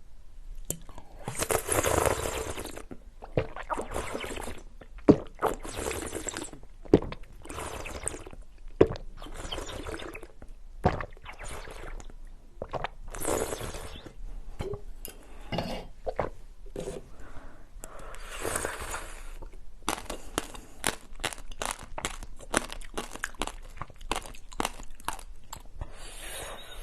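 Close-miked drinking and eating sounds: repeated slurps and sips of drinks and jelly, one to two seconds each, broken up by sharp wet clicks and a few louder snaps.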